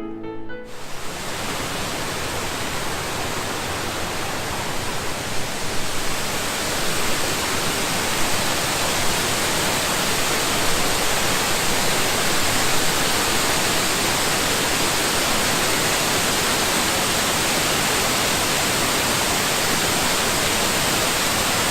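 Waterfall rushing: a dense, steady roar of falling water that grows louder over the first several seconds, then holds level. Music cuts off about half a second in.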